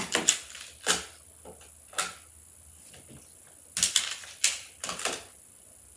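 Plastic magnetic building tiles clicking and clacking together as they are handled and snapped into place: about nine sharp clicks at uneven intervals, some in quick pairs.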